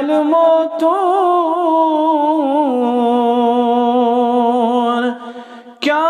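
A man's solo voice singing a nasheed, holding one long drawn-out note for about five seconds, wavering in quick ornaments early on and then slowly sliding down in pitch. It breaks off, and a new phrase begins just before the end.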